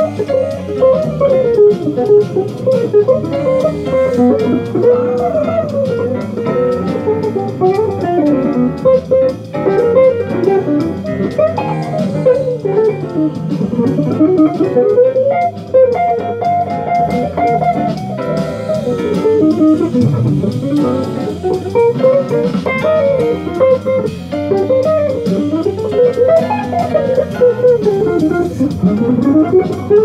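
Electric guitar playing fast single-note bebop jazz lines that keep running up and down in pitch.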